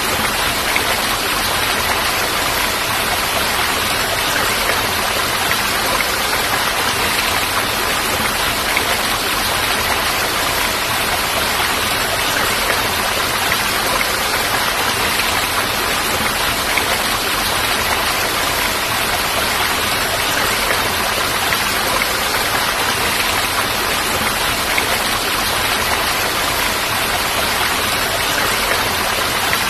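Falling water, a steady even rush with no breaks or single drops standing out.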